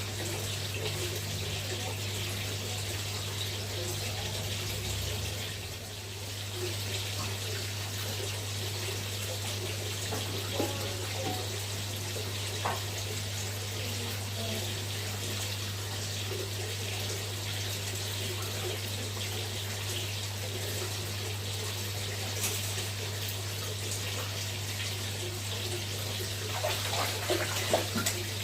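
Steady rush of running water pouring into a tarpaulin fish pond, with a constant low hum under it.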